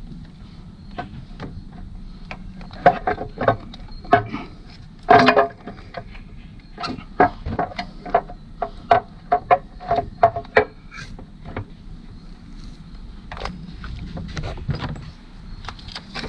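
Hand tools and metal engine parts clinking and knocking in irregular, scattered strikes, some with a short metallic ring. The loudest knocks come in a cluster about three to five seconds in, over a faint steady hum.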